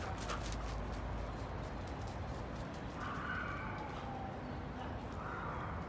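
Two short, high-pitched animal calls, about two seconds apart, over a steady low rumble.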